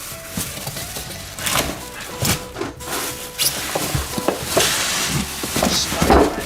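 Packing material and boxed drill press parts being handled: an irregular string of rustles, scrapes and light knocks.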